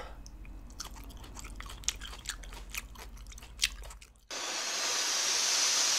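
Close-up chewing of a slice of pickled ginger: soft wet clicks and small crunches. About four seconds in, a loud steady hiss cuts in suddenly and holds.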